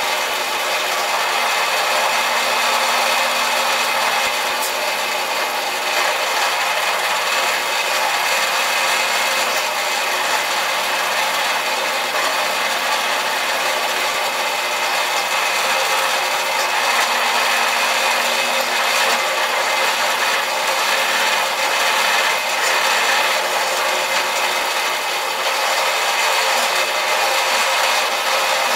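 Drill press running, its bit cutting into steel square tubing and flat strap, a steady grinding drilling sound without a break.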